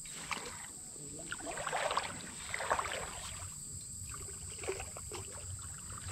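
Creek water splashing and sloshing in irregular spurts.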